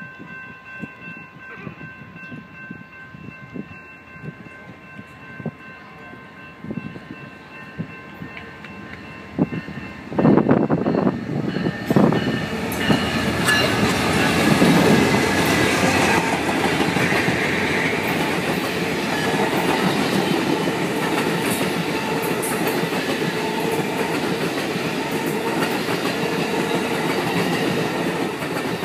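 An Amtrak GE Genesis P42DC diesel locomotive approaches and passes close by about ten seconds in, loud all at once. The bi-level passenger cars behind it follow with a steady rumble and clatter of wheels on the rails.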